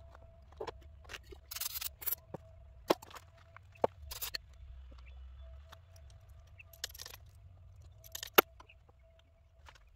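Hand tools working on a minivan's front brake hardware: scattered metallic clicks and clinks of a wrench on the caliper and brake hose fittings, with short rasping bursts and one sharp clink about eight seconds in.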